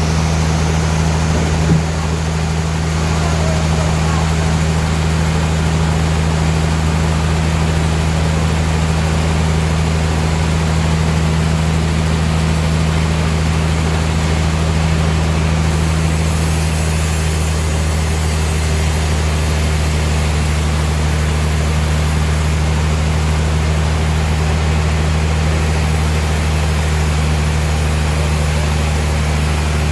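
Sawmill machinery running with a steady low hum, unchanging throughout, with one short knock about two seconds in.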